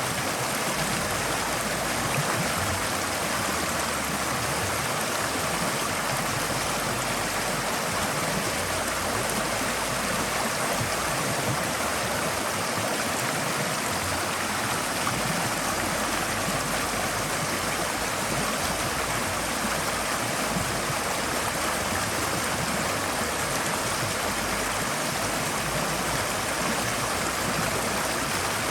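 Forest stream flowing over stones: a steady rushing and babbling of water that holds even throughout.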